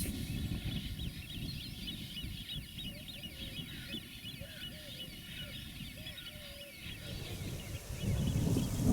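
Many birds chirping and calling, with a lower call repeated several times in the middle. Wind rumbles on the microphone and gets stronger near the end.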